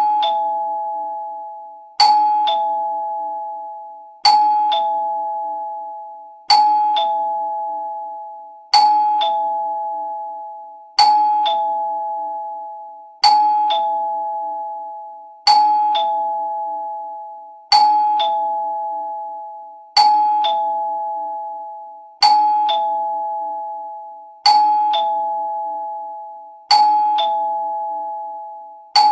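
Two-tone doorbell chime ringing ding-dong over and over, about every two seconds: a higher note, then a lower one, each ringing out and fading before the next.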